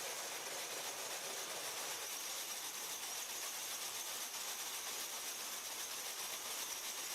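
Steady, even hiss with no distinct events, a high band standing out in it.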